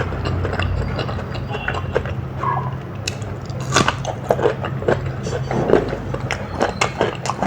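Close-miked eating sounds: biting and chewing with many short, irregular wet clicks from the mouth, over a steady low hum.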